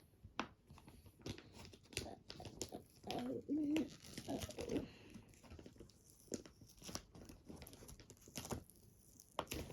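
Magazine paper being torn and crinkled by hand: a string of irregular rips and rustles as the magazine is pulled apart.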